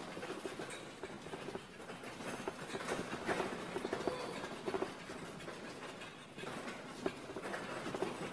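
A large wooden sleigh dragged across a hard floor by rope, making a continuous rolling rattle with irregular knocks.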